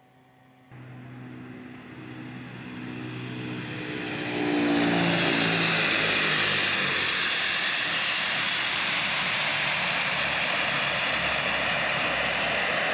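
Tu-95MS bomber's four turboprop engines with contra-rotating propellers, passing close by on the runway. The propeller drone starts suddenly just under a second in, and its tones fall in pitch as the aircraft passes about four to five seconds in. It then settles into a loud, steady noise as the aircraft rolls away.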